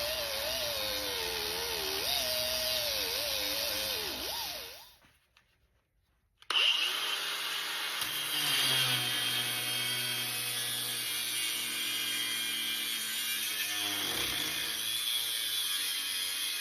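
Handheld electric power tool working on a VW Beetle's steel frame, its whine wavering and sagging in pitch under load. It winds down and stops about four seconds in. After a short silence it starts again suddenly and runs fairly steadily.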